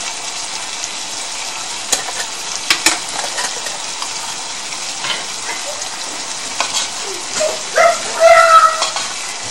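Chicken, onion and basil stir-fry sizzling in a cast-iron skillet, a steady hiss, with a few sharp clicks about two to three seconds in. Near the end a short squeaky sound rises over the sizzle and is the loudest part, as a wooden spoon stirs the seasoning into the sauce.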